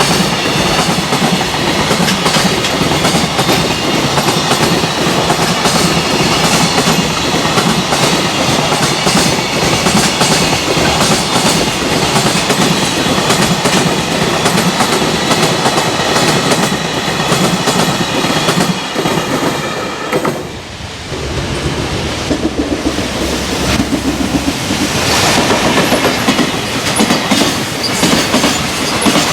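Freight train passing close at speed, its wagon wheels clattering over rail joints in a continuous rolling rumble, with a brief drop in loudness about two-thirds of the way through before the clatter builds again.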